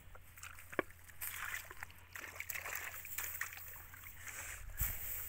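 Feet squelching and sloshing through wet mud and shallow puddle water, with small crackles and splashes and one sharp click about a second in.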